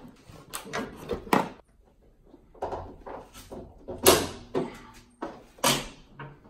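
Jeep Wrangler hood being opened: the hood latches clicking free and the hood being handled, heard as a series of clicks and clunks. The loudest is a sharp knock about four seconds in, with another near the end.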